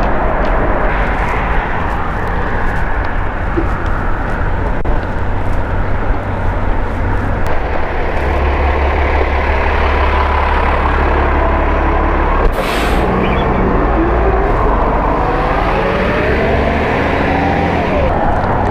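Wind rumbling over a helmet-mounted action camera's microphone while cycling through city traffic, with passing traffic underneath. A short hiss about twelve seconds in, then wavering tones in the last few seconds.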